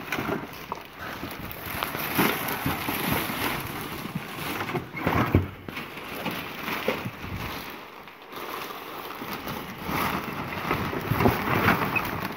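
Irregular rustling and knocking of things being handled and shifted about in boxes and bags, with a brief lull about two-thirds of the way through.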